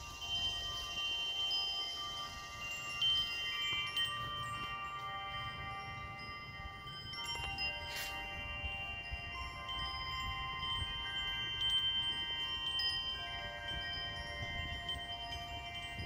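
Metal tubular wind chimes ringing in the wind: a wooden striker knocks the aluminium tubes, setting off many overlapping, lingering tones at different pitches. There is one sharper strike about halfway through, as a gust swings the chime hard.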